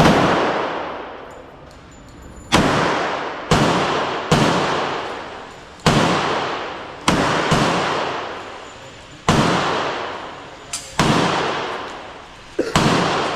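A handgun fired about a dozen times in unevenly spaced shots roughly a second apart, each sharp crack followed by a long echoing decay in the range's enclosed space. One or two fainter shots come in between.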